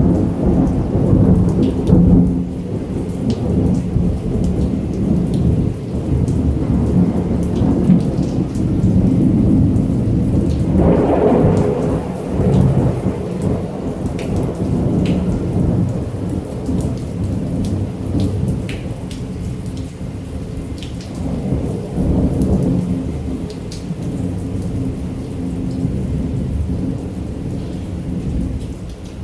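Heavy rain with continuous rolling thunder. The thunder swells louder about eleven seconds in and again about twenty-two seconds in, over fine pattering of raindrops.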